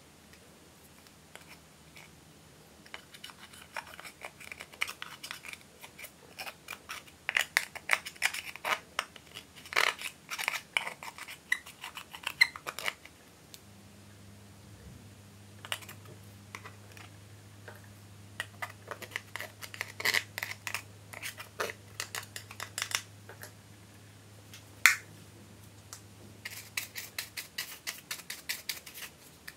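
Small scissors scraping and chipping pressed eyeshadow out of plastic compacts: bursts of rapid clicky scratching as the powder cake breaks up. Near the end a plastic spatula scrapes out a compact in quick strokes.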